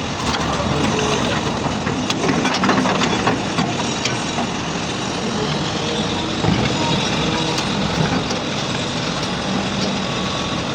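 Diesel engines of heavy earthmoving machines (excavator and loader) running under work, with a few sharp knocks, such as a bucket striking rock, about two to three seconds in.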